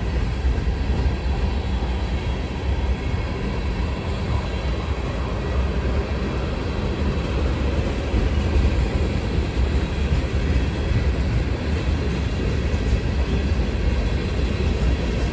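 Freight train of tank cars rolling by: a steady low rumble of steel wheels on the rails.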